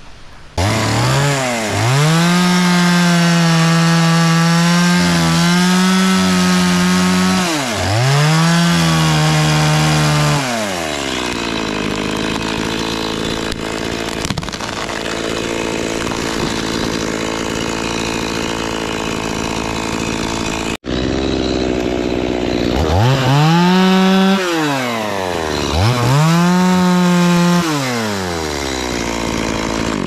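Two-stroke chainsaw cutting through an anjili (wild jack) tree trunk, revved to full speed for about ten seconds with two brief drops, then running at a lower steady speed. Near the end it is revved up and let fall back twice more.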